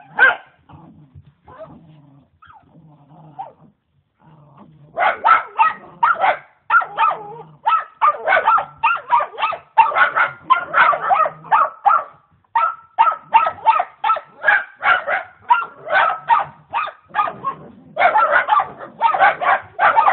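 Dachshund growling low, with one sharp bark at the start, then from about five seconds in barking rapidly and without a break, about three barks a second, at a turtle.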